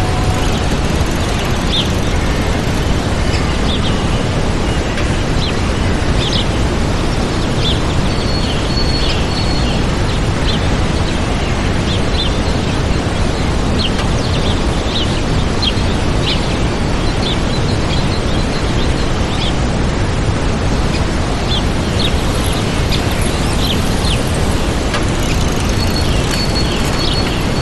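Waterfall rushing steadily, with small birds chirping over it in short high calls and a few brief whistled notes.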